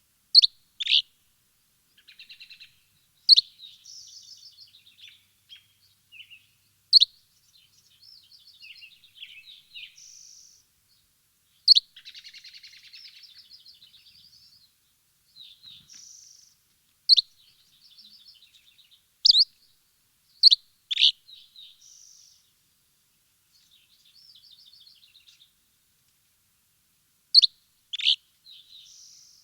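Birds chirping: loud, sharp chirps that drop quickly in pitch come every few seconds, often in pairs, with softer, fast twittering trills in between.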